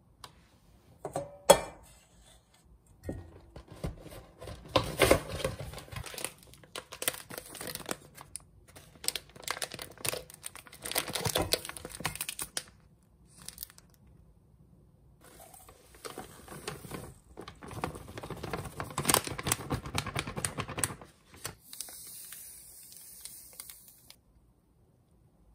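Crinkling and rustling of something being handled, in irregular bursts with short pauses, with a sharp click about a second and a half in.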